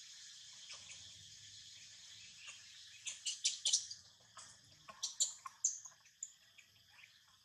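Dry leaf litter crackling and rustling in quick bursts as monkeys move over it, starting about three seconds in, with a few short high chirps near the middle.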